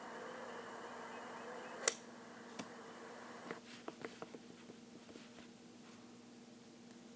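A single sharp crack just under two seconds in, a golf iron striking a ball, over a faint steady hum; a few light ticks follow.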